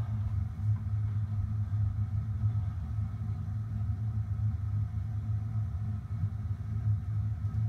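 Steady low machine hum, even in level, with a deep droning tone and fainter higher tones above it.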